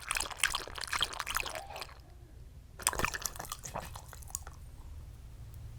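Shiba Inu lapping water: two runs of quick wet clicks, about two seconds each, with a short pause between.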